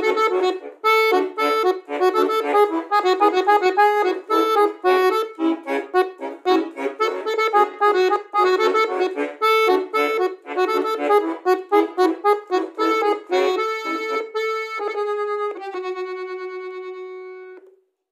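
Bayan, a Russian chromatic button accordion, playing a quick melody over chords. It closes on a long held chord that fades out near the end.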